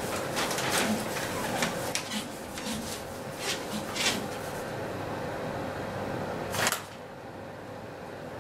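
Paper crinkling and rustling in a run of short crackles for about four seconds, then one sharp crackle near the end, over a steady hum and hiss.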